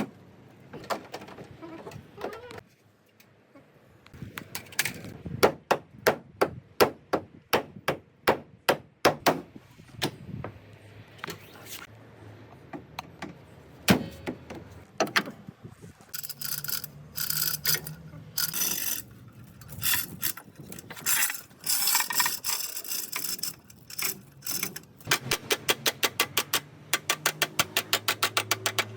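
Workshop tool work: a run of sharp knocks about two a second, later a stretch of scraping noise, then a fast train of clicks near the end.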